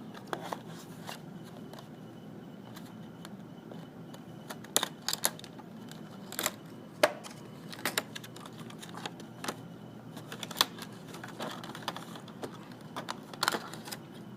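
A speaker's retail box and packaging being opened and handled by hand: scattered sharp clicks, taps and rustles at irregular intervals.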